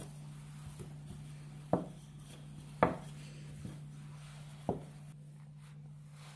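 Three sharp knocks of kitchen utensils, a wooden rolling pin and a ceramic bowl, set down or tapped on a floured worktop while dough pockets are being shaped, the second knock the loudest. A steady low hum runs underneath.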